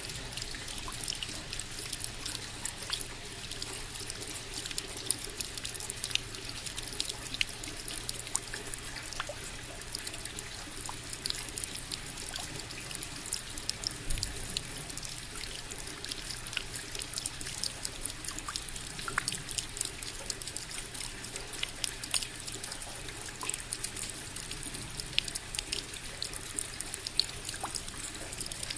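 Water falling and splashing steadily, a continuous hiss dotted with many small sharp splashes and drips.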